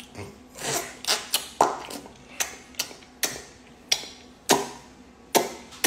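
A series of about a dozen sharp knocks at an uneven pace, with short gaps between them.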